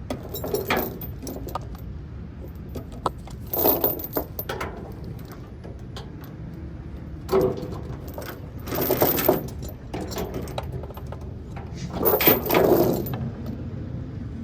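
Metal securement gear being handled: chain links and hardware clinking and rattling in about five short bursts, over a steady low rumble.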